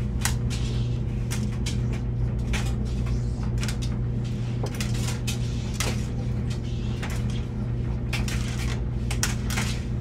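Laundry machine running: a steady, low motor hum with frequent irregular clicks and knocks.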